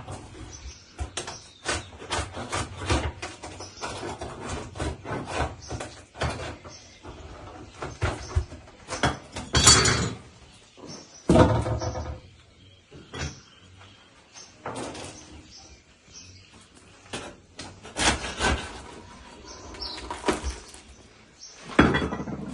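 A metal hook scraping and knocking inside a tandir oven as long flatbreads are pulled off its walls, an irregular run of clicks, scrapes and knocks. The loudest knocks come a little before and after the middle.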